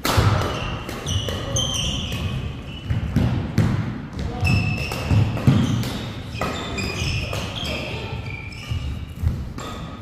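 Badminton doubles rally: shoes squeaking on the court mat, feet thudding, and the sharp crack of rackets hitting the shuttlecock again and again.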